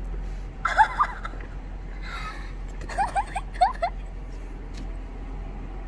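A young girl's excited, high-pitched squeals and gasps of surprise: short rising squeaks in two bunches, about a second in and again about three seconds in.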